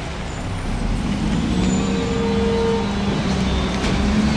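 Mack MR front-loader garbage truck's diesel engine running as the truck pulls away, its drone growing louder and rising about a second and a half in. A brief whine sounds over it for about a second.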